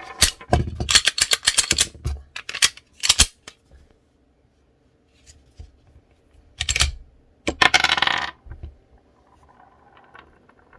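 Semi-automatic pistol being worked by hand to clear a jam: a dense run of sharp metallic clicks and clacks from the slide and magazine, then one click near seven seconds and a longer clattering rattle about a second later.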